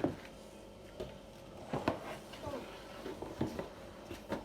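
Cardboard box and packaging being handled as a rice cooker is unpacked: scattered knocks and rustles.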